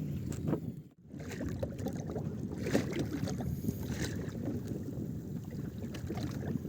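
Strong wind rumbling on the microphone aboard a small fishing boat at sea, with a few sharp knocks; the sound cuts out briefly about a second in.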